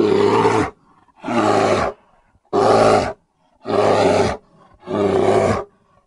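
Brown bear calling five times in steady succession, each call loud and just under a second long, about one every second and a bit.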